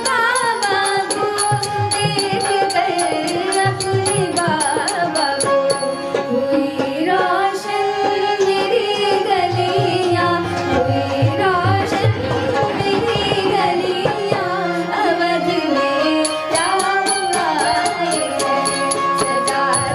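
Indian devotional-classical music: a sliding, ornamented melody line over a steady tabla rhythm.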